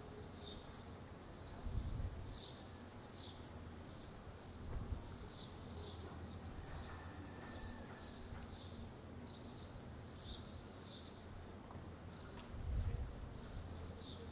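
Faint outdoor village ambience: a steady run of short, high chirps repeating about twice a second over a light hiss, with a few brief low rumbles.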